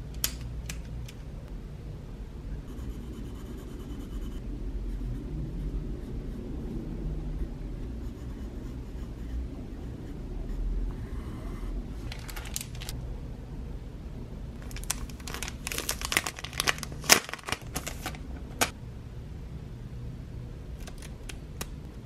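A few sharp clicks at the start, then a mechanical pencil writing on lined notebook paper in short scratchy strokes. The strokes are heaviest and loudest in the second half, over a low steady hum.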